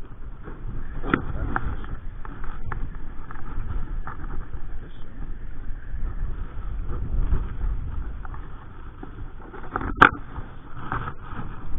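Strong wind buffeting the microphone: an uneven, gusting low rumble. A single sharp click about ten seconds in.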